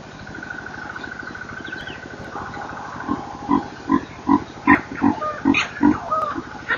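Baby baboon squealing: a quick run of about eight short squeals, two or three a second, starting about halfway through. The uploader suspects these are distress calls during an attempted snatch of the infant.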